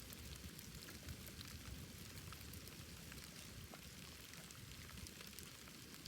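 Wood bonfire crackling quietly: many small scattered pops and snaps over a low, fluttering rumble of the flames.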